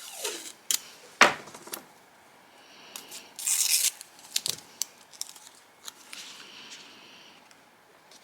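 Paper and cardstock being handled in scrapbooking: a few sharp clicks and taps, the loudest just over a second in, and a brief rasping rip of paper about three and a half seconds in.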